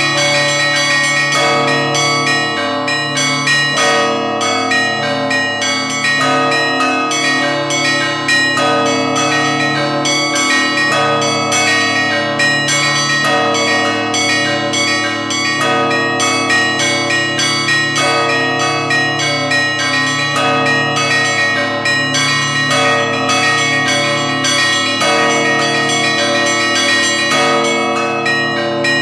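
Kremlin church bells ringing continuously in the Russian Orthodox manner: deep bells sound under many smaller bells struck rapidly, in a pattern that repeats about every two and a half seconds.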